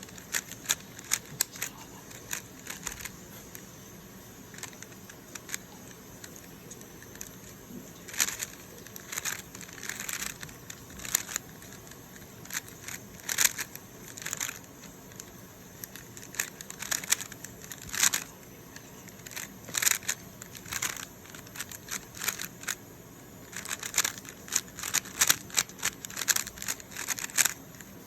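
Rubik's Cube being turned by hand: irregular runs of quick plastic clicks as the layers are twisted, with short pauses between the runs.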